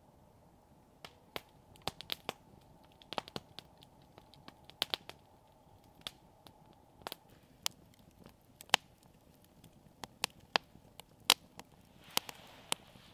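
Wood campfire crackling, with sharp irregular pops and snaps about one or two a second, starting about a second in.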